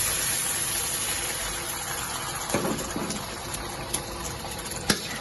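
Water being poured into a hot wok of fried pickled vegetable, garlic and ginger, gushing and hissing, slowly dying down. A few sharp clicks near the end.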